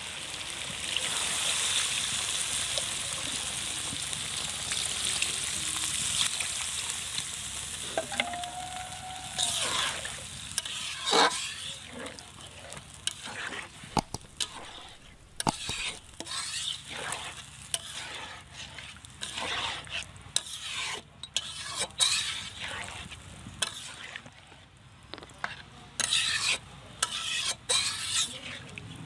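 Chicken and turnip curry sizzling steadily in a pan. About nine seconds in, repeated irregular scrapes of stirring begin, and the sizzle dies down.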